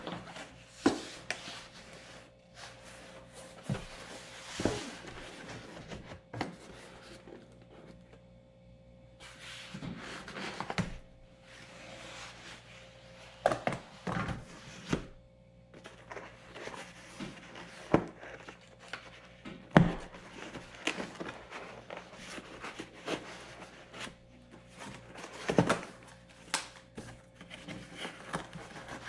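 A cardboard box and its packaging being handled and opened on a table: scattered knocks and thunks, with bouts of rustling in between.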